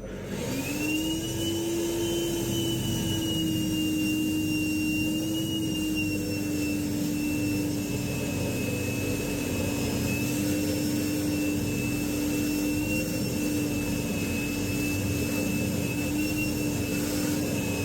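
Ryobi battery-powered shop vac spinning up and running with a steady high whine as it sucks the water out of a toilet tank, its pitch sagging slightly; it shuts off at the very end.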